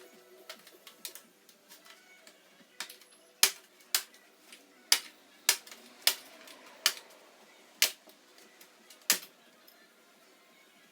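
Laptop being taken apart by hand: a run of sharp, irregular clicks and taps of plastic and metal parts being handled, loudest between about three and nine seconds in, then it goes quiet.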